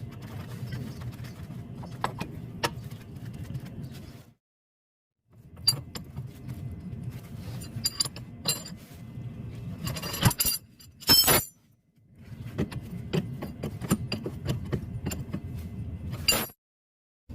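Metal tools and parts clinking and knocking during hand work on a golf cart's steering linkage, over a low steady rumble, in several short clips that cut off abruptly.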